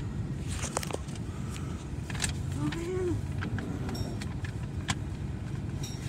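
Steady low rumble of a car cabin, with scattered sharp clicks and faint sounds from a film playing on a small screen, including a brief voice-like cry about three seconds in.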